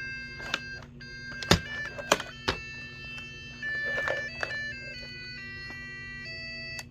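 Electronic alarm clock playing a melody in plain beeping tones, note by note, with several sharp knocks along the way. The tune stops suddenly with a click near the end.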